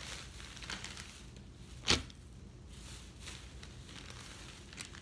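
Faint rustling and handling noises, with one sharp knock about two seconds in.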